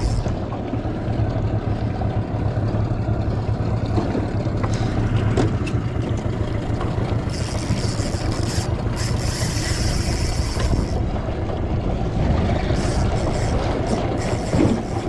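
Small boat's outboard motor running steadily at slow trawling speed, a low hum under water and wind noise. About seven seconds in, a high hissing whir joins for some three seconds.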